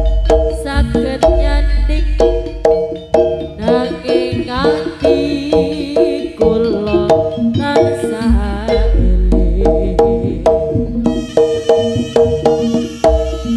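Jaranan ensemble playing: quick hand-drum strokes over repeated ringing gong-chime notes and a deep low bass. About four seconds in, a wavering melody line glides up and down.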